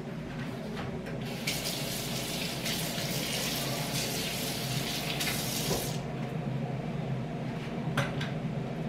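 Kitchen tap running into the sink for about four and a half seconds, starting a second and a half in and shutting off at about six seconds, over the steady hum of an air fryer running. A short knock near the end.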